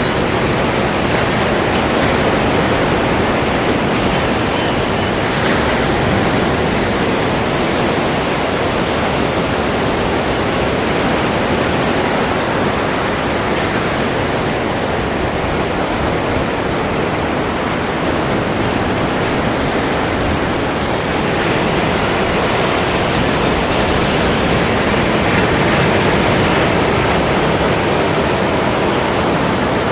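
Ocean surf: a continuous wash of breaking waves, nearly even in loudness, with a gentle swell a little past the middle and again near the end.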